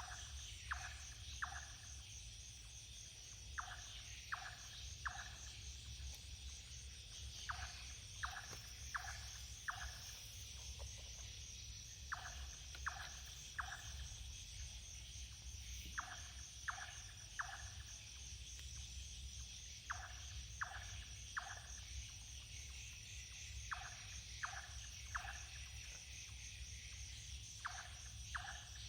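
A night animal calls over and over: about every four seconds comes a quick run of three, sometimes four, short notes that each drop in pitch. Under it a chorus of crickets or other insects keeps up a steady high drone.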